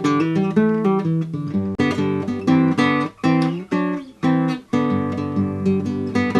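Acoustic guitar music: strummed and picked chords.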